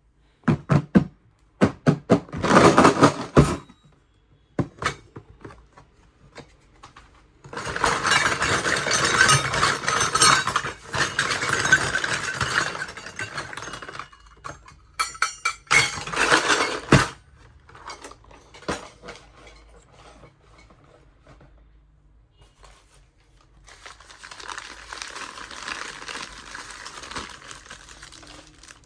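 Miniature stainless-steel kitchenware clinking and clattering as the pieces are handled and set down, with longer stretches of rustling, scraping handling noise in between.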